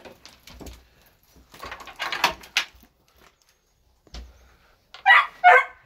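Knocks and scraping of a wooden rabbit-hutch door being handled, with a thump a little after four seconds in, then a dog barking a few times near the end.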